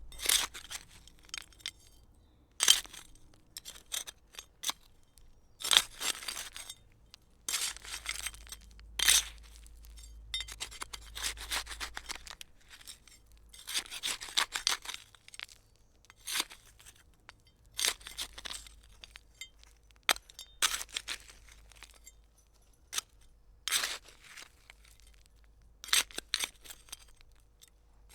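Hand trowel digging: a series of short, gritty scrapes and stabs at irregular intervals, with brief pauses between strokes.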